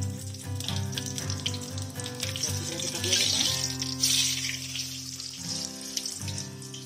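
Cumin seeds, dried red chillies and bay leaves sizzling in hot mustard oil in a kadhai as a wooden spatula stirs them, loudest about three to four seconds in. Background music plays throughout.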